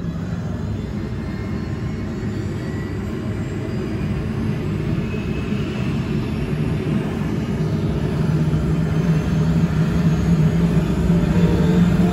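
Helicopter engine and rotor running on the ground before takeoff, heard from inside the cabin: a steady low drone that grows gradually louder as the rotor spins up.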